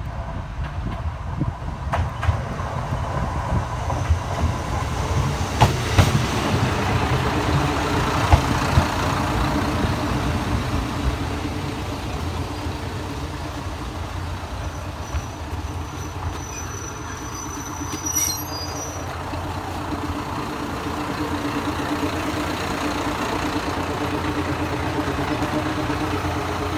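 KiHa 54 diesel railcar rolling into a station, its wheels clicking over rail joints, then its diesel engine idling with a steady low hum once it has stopped. A brief high-pitched squeal with a sharp click a little past the middle.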